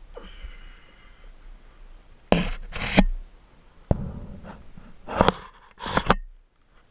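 Short scrapes and rubs against a sandstone rock face as a climber moves up it, four loud ones, with one sharp knock about four seconds in.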